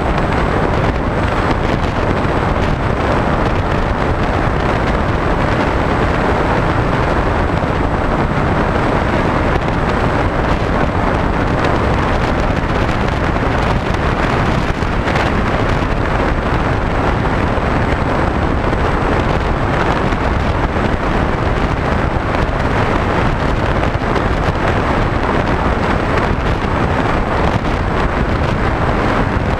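Wind rushing over the onboard camera microphone of a HobbyKing SkyEye FPV plane in flight, with the drone of its electric motor and propeller underneath. The noise is loud and steady throughout.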